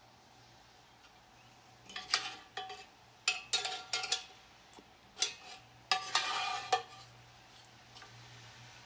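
A metal utensil scraping and knocking against a Birmingham Stove & Range #12 cast iron dutch oven full of beans, with a metallic ring: a run of short scrapes from about two seconds in, ending in one longer scrape near seven seconds.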